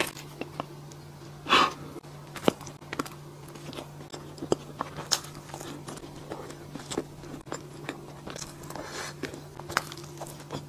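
A person chewing a soft corn-shaped hot dog, close to the microphone: scattered wet mouth clicks with one short louder bite sound about a second and a half in, over a faint steady low hum.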